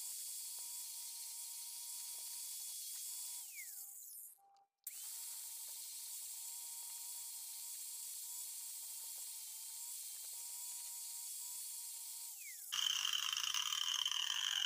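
Angle grinder with an orange sanding pad running free with a steady whine, switched off and winding down in pitch about four seconds in, then running again and winding down once more near twelve seconds. Right after, a louder, harsher noise starts abruptly.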